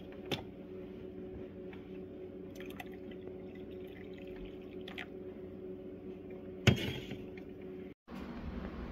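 Hot coffee poured from a glass coffee-maker carafe into a ceramic mug over a steady low hum, with a sharp knock near the end.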